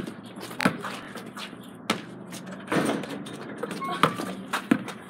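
Basketball bouncing on a hard backyard court: several sharp thumps at uneven intervals as the ball is dribbled during play.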